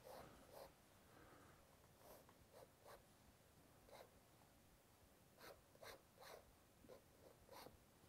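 Faint, irregular scratching of a fountain pen nib drawing short strokes on sketchbook paper, about a dozen strokes with a small cluster near the end.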